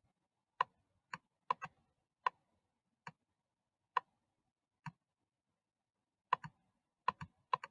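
Computer mouse button clicking: about fourteen short, sharp clicks at an uneven pace, several in quick pairs.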